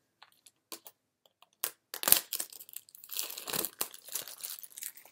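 Clear plastic shrink-wrap being ripped and peeled off a small cardboard box, crinkling and crackling, with a sharp loud tear about two seconds in and a longer stretch of crinkling from about three seconds.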